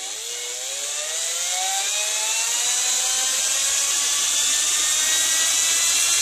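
Cordless drill spinning up a LEGO Technic propeller through its plastic gear train. A whine rises in pitch over the first two or three seconds and then holds, under a growing rush of air from the blades, getting louder throughout.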